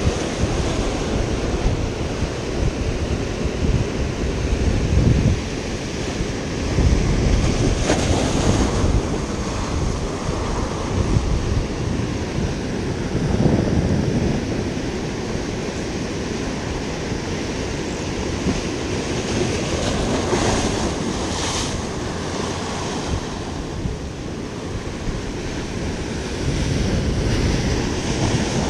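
Ocean surf breaking and washing against the boulders of a rock jetty, rising in several surges, the last near the end as a wave crashes onto the rocks. Wind buffets the microphone.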